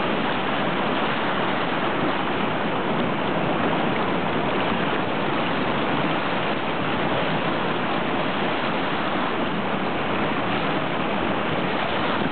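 Ebro River in flood, its muddy floodwater rushing past in a steady, unbroken noise.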